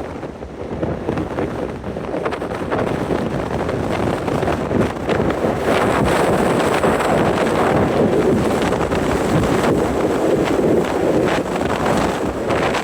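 Strong wind buffeting the microphone in irregular gusts, easing just after the start and then building back up to a steady rush.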